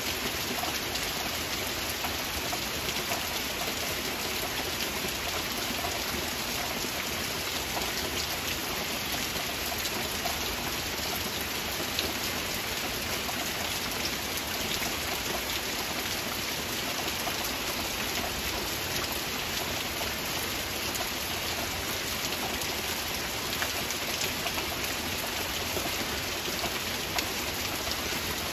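Steady heavy rain: a dense, even hiss with many separate drops ticking through it.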